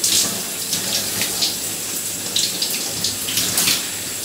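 Water running steadily and splashing, with irregular louder splashes.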